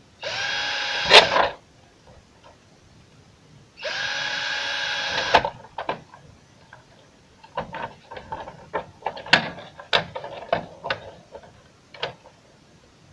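Cordless drill-driver running in two short bursts of about a second and a half each, drilling small holes through a plastic toy excavator. After them comes a run of light clicks and knocks as the plastic parts are handled.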